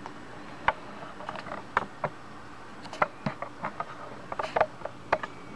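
Laptop keyboard keys tapped repeatedly, a string of irregular sharp clicks, some in quick clusters: the Delete key being pressed at start-up to get into setup.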